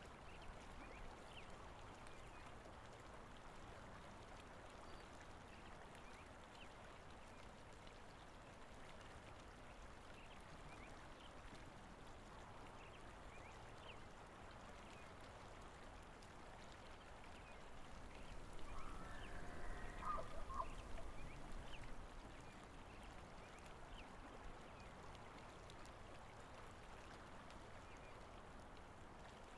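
Faint outdoor ambience with a steady rush of flowing water. About two-thirds of the way through, birds call for a few seconds, louder than the background.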